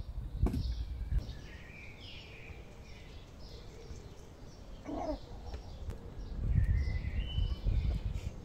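Small wild birds chirping repeatedly, short high notes, some falling in pitch. A single brief hen cluck comes about halfway through. Low rumbling gusts of wind noise surge near the start and again near the end.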